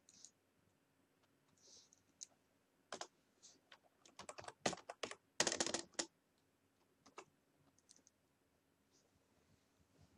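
Typing on a computer keyboard: a quick run of keystrokes, densest from about three to six seconds in, then a few single taps.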